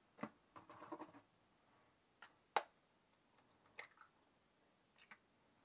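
Faint sharp taps and small crackles of eggshells being cracked with a knife over a bowl, the loudest single tap about two and a half seconds in.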